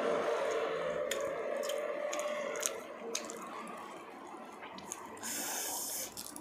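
Cooked shrimp being peeled by hand: scattered wet clicks and crackles of shell coming away, with a longer rustling crackle near the end.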